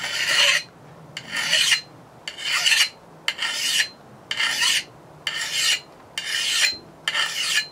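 Hand file rasping along the steel edge of a Collins double-bit axe head in rhythmic push strokes, about one a second, filing down a dinged, neglected edge.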